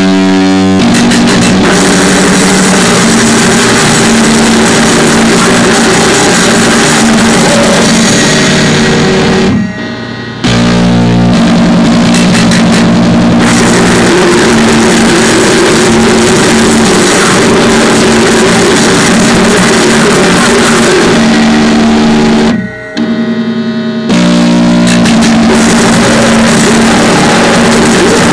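Crust punk / noisecore music: heavily distorted guitars and pounding drums in a loud, dense wall of noise. Twice, about ten seconds in and again near the end, it drops out for under a second, then a held distorted chord rings before the full band crashes back in.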